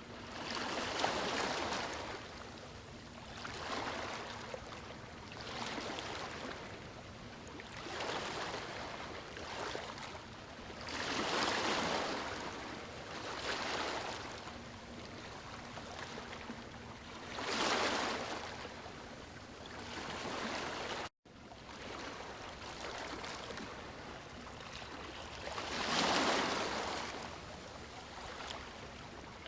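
Ocean waves washing in, the sound of water swelling and fading every couple of seconds, with a few larger waves among them. The sound cuts out completely for a split second about two-thirds of the way through.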